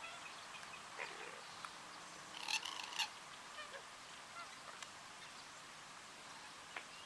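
Wetland bird calls: one harsh call about two and a half seconds in, with a few faint clicks and short chirps around it.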